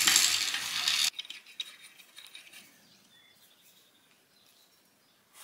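A harsh, even scraping or hissing noise that stops abruptly about a second in, then faint scattered metallic clicks and taps of parts being handled on a bare engine block.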